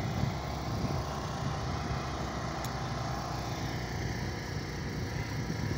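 Heavy equipment diesel engine running steadily, a low even rumble with no changes in pace.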